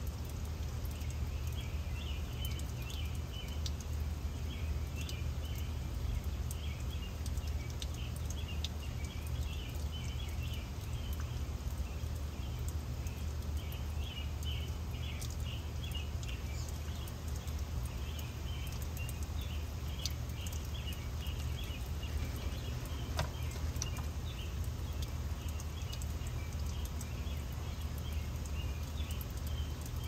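Steady low rumble and hiss of a garden water fountain and wind, with small birds chirping in quick, irregular high bursts over it.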